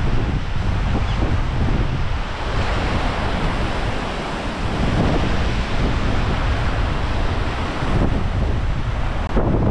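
Strong wind buffeting the microphone as a steady low rumble, over the wash of waves breaking on the shore.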